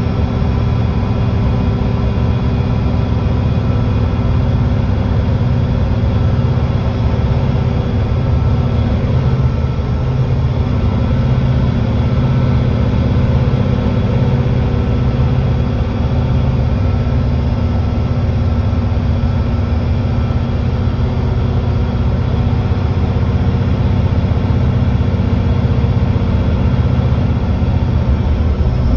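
Mercedes-Benz Citaro C2 G hybrid articulated bus driving steadily at road speed, its diesel engine running under an even load, heard from inside the bus.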